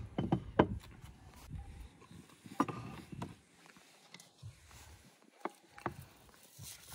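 Scattered, irregular knocks and clicks, about half a dozen, with low rumbling in the first couple of seconds.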